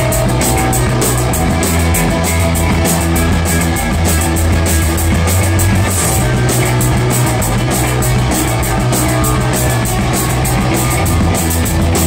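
Live rock band playing: electric bass, electric guitar and drum kit, with the bass line loud in front and quick, steady cymbal strokes over it. The bass changes notes a few times.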